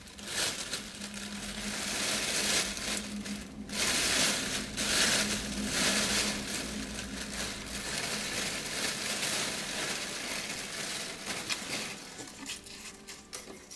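Thin plastic bag crinkling and rustling in irregular bursts as it is handled and pulled off a small bare-root fir tree, growing quieter near the end.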